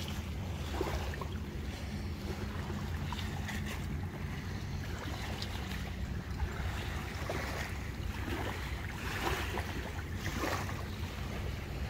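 Wind rumbling steadily on the microphone, with small waves lapping at the shore and a few faint clicks.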